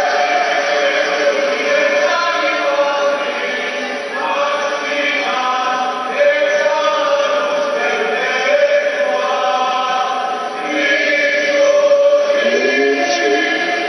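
A crowd of pilgrims singing together in unison, a melody of held notes.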